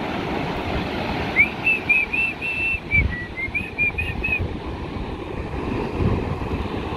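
Ocean surf breaking and washing up the beach, a steady rushing wash with a few low thuds of waves. From about a second and a half in, a quick run of about a dozen short high chirps lasts some three seconds.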